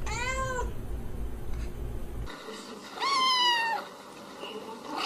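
Cat meowing twice: a short meow at the start, then a longer, louder meow about three seconds in.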